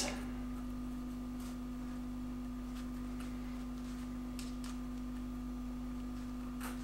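Steady low humming tone, one held pitch that does not change, with a few faint, brief rustles of elastic shock cord being pulled through the fingers.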